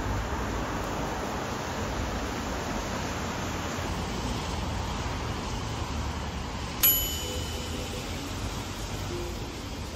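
Steady noise of a wet street in the rain. About seven seconds in, a single short, bright metallic ding.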